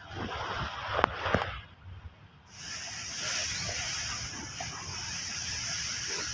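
Water sloshing and splashing, with two sharp knocks about a second in; from about two and a half seconds a steady rushing hiss of moving water takes over.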